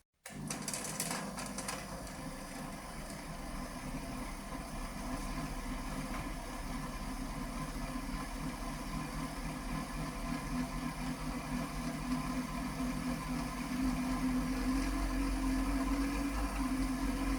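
Electric motor of an Elna TSP sewing machine running steadily as it drives the bobbin winder, filling the bobbin with thread while the handwheel clutch is disengaged. The hum gets a little louder and slightly higher in pitch near the end.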